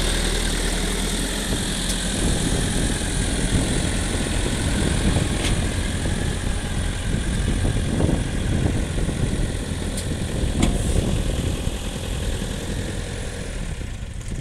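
Caterpillar backhoe loader's diesel engine running steadily at idle, with a few short clicks over it.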